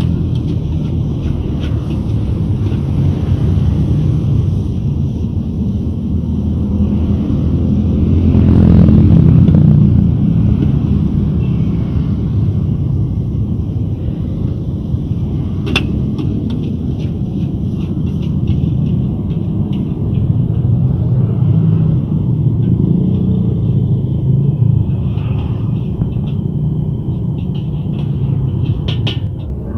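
Flat rice noodles being stir-fried in a wok with a metal spatula, over a steady low rumble that swells about nine seconds in. The spatula clanks sharply against the wok about sixteen seconds in and a few times near the end.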